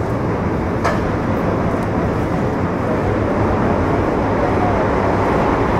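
Metro Cammell M-Train (C250 I-Stock) electric multiple unit running between stations, heard from inside the car: a steady rumble of wheels on rail under a low hum, with one sharp click about a second in.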